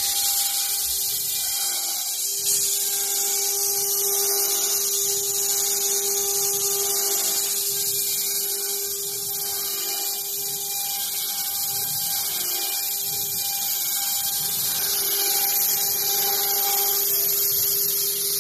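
CNC router spindle running at high speed and milling pockets into white foam blocks. The sound is a steady high hiss of the cutting over a constant hum.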